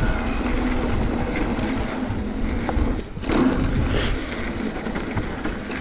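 Wind rushing over the microphone and the knobby tyres of an electric mountain bike rolling fast over a dry dirt trail, with small rattles and knocks from the bike over bumps.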